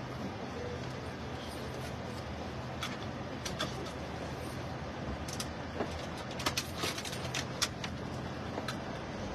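Cabin noise inside a passenger vehicle: the engine runs with a steady low hum, and several sharp clicks or rattles come in the middle of the stretch.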